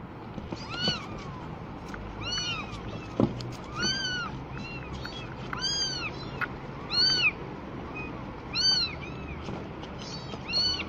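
Very young kittens meowing: a run of short, high-pitched meows, each rising and falling in pitch, about one every second.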